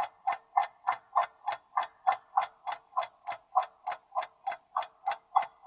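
Countdown-timer tick sound effect, a clock-like tick repeating evenly about three times a second while the answer time runs out.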